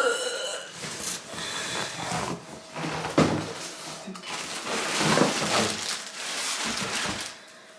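Plastic bag crinkling and cardboard box scraping as a sewing machine wrapped in clear plastic is lifted out of its shipping box, with a few knocks along the way. The rustling stops shortly before the end.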